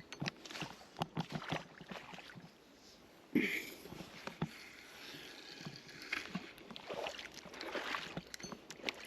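Irregular clicks and rustles of things being handled, with one louder knock about three and a half seconds in.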